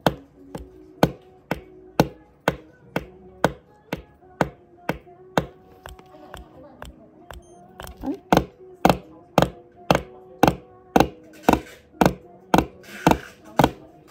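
Meta V digital auto SMP (scalp micropigmentation) machine handpiece pulsing its needle in echo mode, set to two strikes per pulse, as it places dots on a practice pad. Each pulse is a sharp tap, about twice a second, growing louder about eight seconds in.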